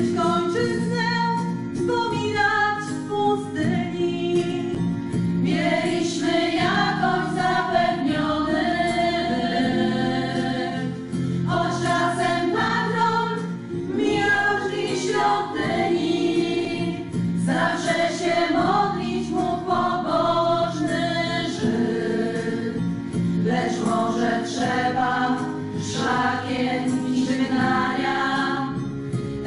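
A women's choir singing, several voices amplified through microphones, over a steady accompaniment of held low notes.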